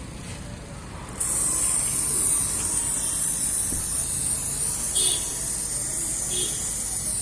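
Aerosol spray can hissing in one long, continuous spray that starts suddenly about a second in.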